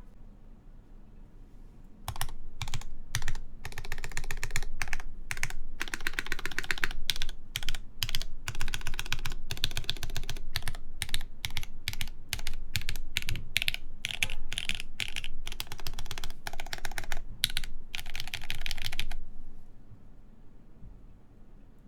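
Steady typing on a mechanical keyboard with lubed JWK Lavender linear switches in an aluminum plate and GMK keycaps: quick runs of keystrokes with short pauses between them. It starts about two seconds in and stops a few seconds before the end.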